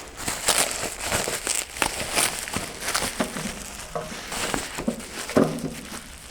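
Packaging being crumpled and torn off a parcel by hand: irregular crinkling, rustling and crackling with sharp short rips.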